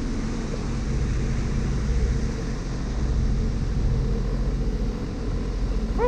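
Sea-Doo Wake Pro 230 personal watercraft engine running steadily at low speed, with a hiss of water rushing past the hull.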